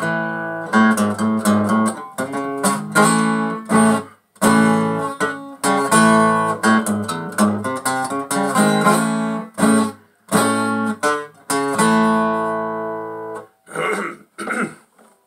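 Takamine EF360STT steel-string acoustic guitar, its sides cracked, strummed through a blues, chords struck again and again with short breaks between them. The strumming stops near the end.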